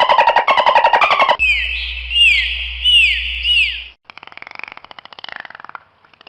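Dolphin vocalising: a loud, fast buzzing chatter of clicks, then about four short whistles that each sweep down in pitch, over a low steady hum. After a brief gap comes softer click chatter.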